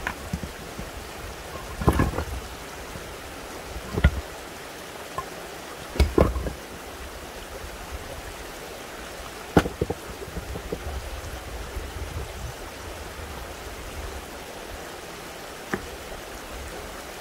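Stones being pulled out of a dry-stone wall and dropped onto concrete and other stones: a sharp knock every few seconds, about five in all, over the steady sound of running spring water.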